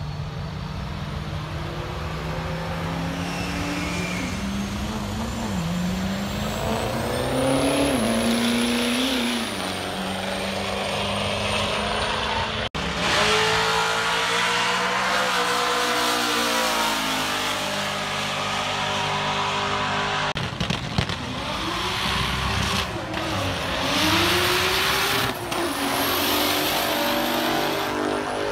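Drag-racing vehicles accelerating hard down the strip, their engines climbing in pitch and dropping back at each upshift, over a steady low rumble. Several passes are heard, one after another.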